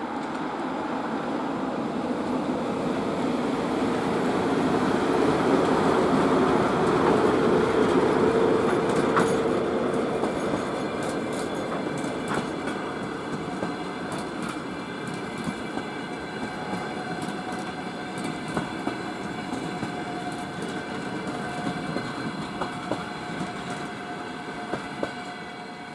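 A VL82M dual-current electric locomotive passes with a passenger train, and its coaches roll by after it. A rolling rumble swells to its loudest about seven seconds in, then eases into a run of wheel clicks over rail joints with a faint, thin, steady whine above them.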